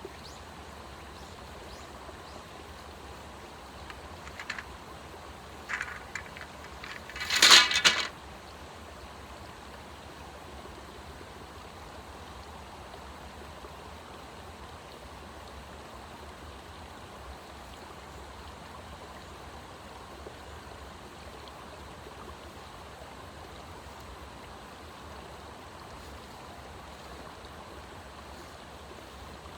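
Steady rushing of a flowing stream. About seven seconds in there is a short, loud, rapid rattling burst, after a few fainter clicks.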